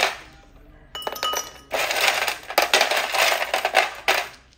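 A drink being shaken hard in a container: a short spell of shaking at the start, then a longer spell from about a second in, a dense run of quick rattling clicks that stops just before the end.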